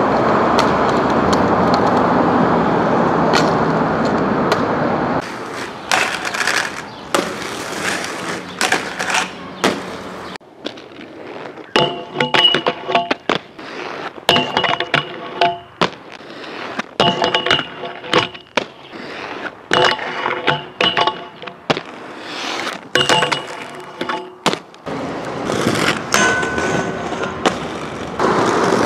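Aggressive inline skates making a run of sharp clacks and knocks as they land on and grind rails and ledges, over steady traffic noise for the first five seconds or so. From about twelve seconds in, a repeating ringing chord sounds every couple of seconds among the impacts.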